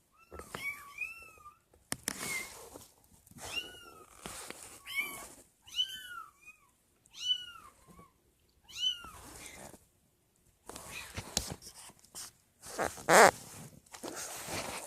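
Young kittens mewing: many short, high-pitched mews, each rising and falling, in quick succession for most of the first nine seconds. After a brief pause, rustling and scuffling with one louder bump near the end.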